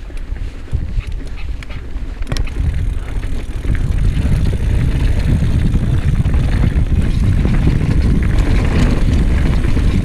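Mountain bike riding fast down a dirt singletrack: tyres rolling and bike rattling over the trail, heard as a dense low rumble that gets louder about four seconds in, with a few sharp knocks in the first couple of seconds.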